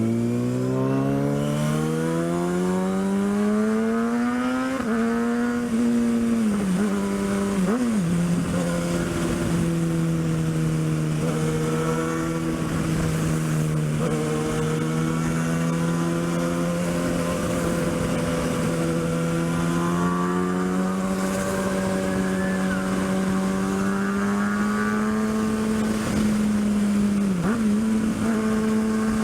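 Kawasaki ZX-6R's 636 cc inline-four engine heard from the bike on the move. The revs climb steadily for the first five seconds, dip a few times around six to eight seconds in, then hold a steady note. The revs rise again slightly about twenty seconds in, with a short dip near the end.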